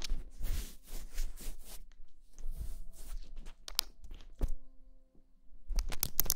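Close-up handling noise: rustling and soft thunks of fabric and hands moving near the microphone. There is a single thump about four seconds in, and a loud burst of rustling and clicks near the end as a knotted plush pillow is lifted up close.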